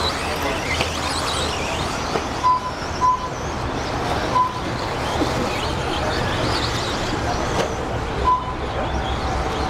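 Electric RC stock trucks racing on a dirt track: a steady bed of motor whine and tyre noise, with four short electronic beeps across the middle and near the end.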